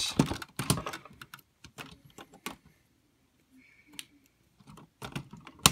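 Plastic parts of a Jum Bowhale transforming mecha toy clicking and rattling as they are handled and snapped together. There is a quick run of clicks at first, scattered single clicks after, and one sharp click near the end.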